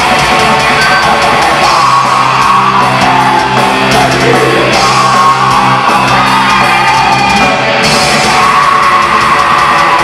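Metal band playing live on electric guitar, bass guitar, keyboards and drums, with a long held chord through the middle.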